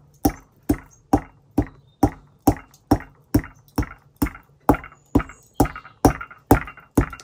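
Pestle pounding pepper and lovage in a mortar: steady, evenly spaced strikes, a little over two a second, each with a short ring.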